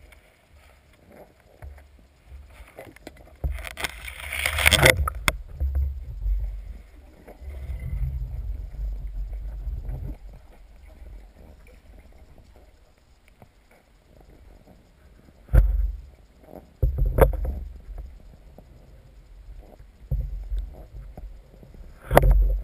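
Underwater noise during a dive: uneven low rumbling of water movement, with a loud hissing burst about four seconds in and a few sharp knocks later on.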